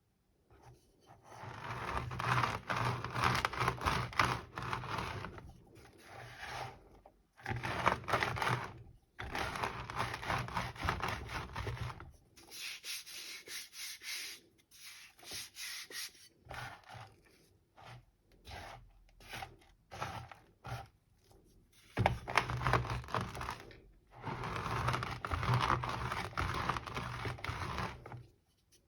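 Rolling pin crushing and grinding little pebbles of gym chalk into powder: dense crunching in stretches of a few seconds with short pauses, softer through the middle.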